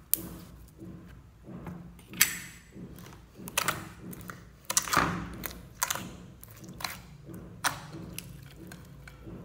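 Hands squeezing and pressing clear slime mixed with foam beads and gel in a glass bowl: wet squelches with sharp pops and clicks at irregular intervals.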